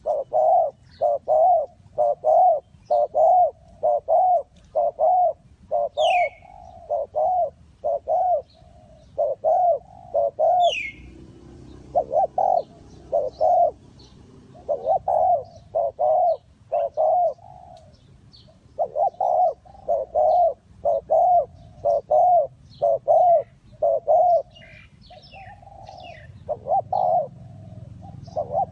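Spotted dove cooing over and over: runs of short, mellow coos at a steady pace, broken by brief pauses. Faint high chirps of other small birds now and then, with two sharp falling chirps.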